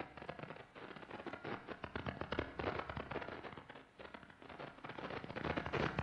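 Radio storm from Jupiter, caused by its interaction with its moon Io, picked up by a radio receiver and played as sound: dense crackling of short bursts of radiation, like popcorn popping or a handful of pebbles thrown onto a tin roof, swelling and fading in waves.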